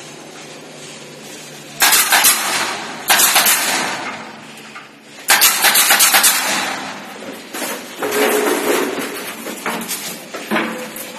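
Several loud bursts of rattling, clattering knocks, each made of many quick clicks, typical of long plastic ceiling panels being handled and fitted into place.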